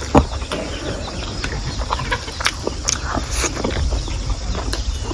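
Chickens clucking now and then, amid many short sharp clicks and a steady low rumble.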